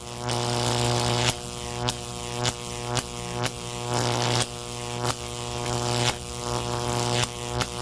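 Electric buzz sound effect: a steady electrical hum under a harsh crackling buzz that swells and cuts off sharply, over and over, about once every half second to second.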